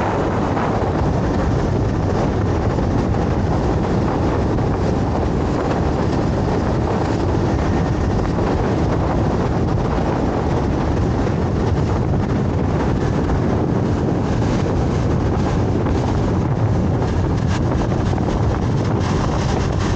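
Wind buffeting the microphone of a moving scooter, over the steady drone of its engine and road noise.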